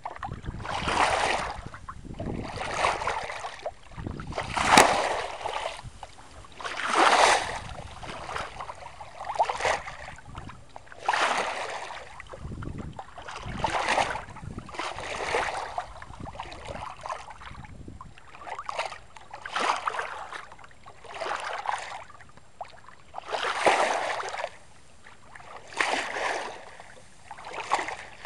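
Water rushing and splashing along the hull of a 1964 Mercator Offshore 30 sailboat under sail through small chop, in repeated swooshes about every one to two seconds.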